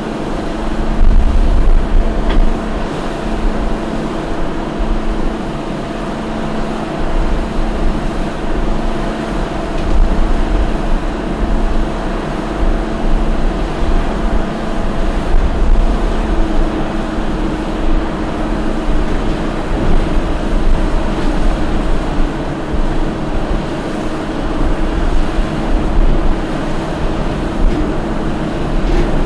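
Hanging-roller concrete pipe machine running, its steel pipe mould turning on the roller shaft: a loud, steady low rumble with a steady motor hum over it.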